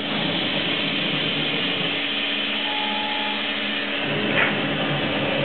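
Sharp SV-2412 CNC vertical machining center running a program in dry run mode, without the spindle or any cutting, giving a steady machine whir. A short higher tone sounds a little past two and a half seconds in, and the hum shifts about four seconds in.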